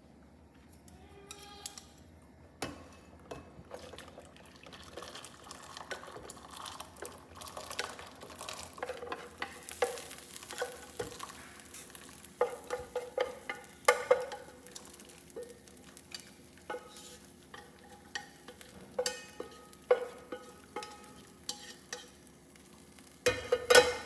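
A utensil scraping, stirring and knocking in a cooking pot as cooked corn is scooped out into a bowl, with irregular clinks throughout. The sharpest knocks come about halfway through and just before the end.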